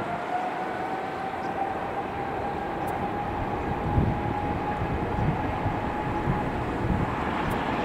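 Jet airliner on landing approach: a steady rushing roar with a high engine whine that glides slowly upward in pitch.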